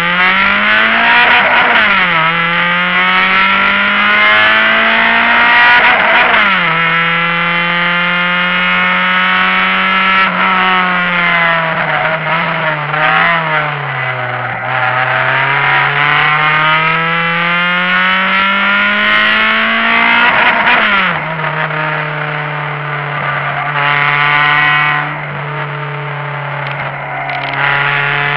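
Honda Civic hatchback's four-cylinder engine, heard from inside the cabin, driven hard: its pitch climbs and falls several times as the car accelerates and slows, with sharp drops about 2, 6 and 21 seconds in as it shifts or lifts off.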